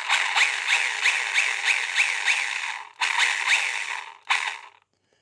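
Stihl battery mini pruning chainsaw run with no load, its chain spinning in three trigger bursts, a long one of about three seconds, then a short one and a very short one. A rising whine repeats a few times a second. It is being test-run to check where the chain's bar oil flings.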